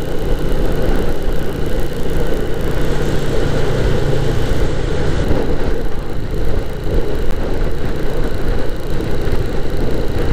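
Suzuki Volty single-cylinder motorcycle running at steady cruising speed, its engine note mixed with a constant rush of wind and road noise.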